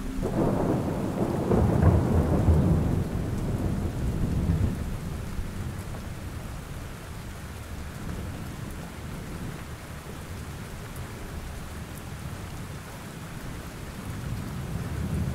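Steady rain with a roll of thunder at the start, rumbling low and dying away over about five seconds, leaving only the hiss of the rain.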